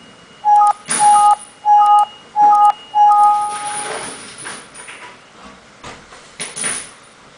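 A beeper or horn sounds five loud beeps at one unchanging pitch. The first four are short and about half a second apart, and the last is held for nearly a second.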